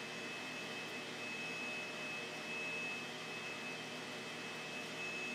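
Bandsaw running freely with no wood in the blade: a steady high-pitched whine over a low hum.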